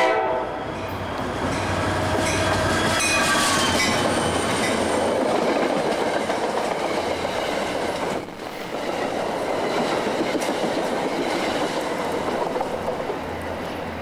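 NJ Transit commuter train's horn cuts off right at the start, then the train runs past close by: a steady rumble and rattle of passenger coaches on the rails with wheel clicks and a few brief high falling squeals in the first seconds. It fades slightly near the end as the cab car recedes.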